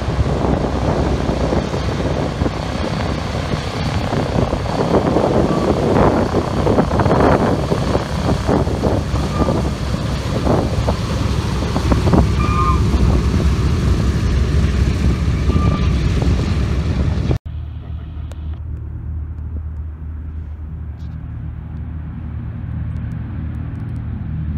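Four Wright R-1820 radial engines of a B-17 Flying Fortress running as the bomber taxis past, loud and steady, with a few short high squeaks. After a sudden cut about 17 seconds in, the engines are quieter and lower.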